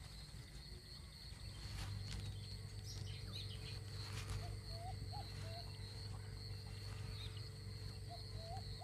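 Faint natural ambience: a steady high-pitched insect drone under a low hum, with a few short bird chirps about halfway through and again near the end.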